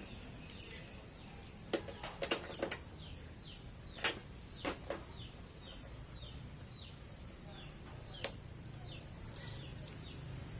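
Scattered sharp metallic clicks and knocks of hand tools being used to refit the spark plug on a small four-stroke mower engine, the loudest about four seconds in. Behind them a bird repeats short falling chirps, about one or two a second.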